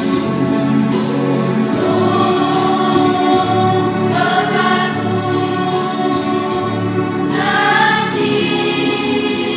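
Primary school children's choir singing together over held instrumental accompaniment chords, with sung phrases entering about two, four and seven seconds in.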